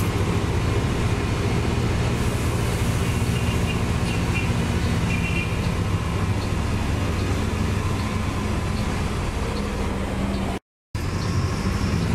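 Marcopolo Torino city bus under way, heard from inside the cabin: a steady low engine and drivetrain hum with road noise. The sound cuts out completely for a moment near the end.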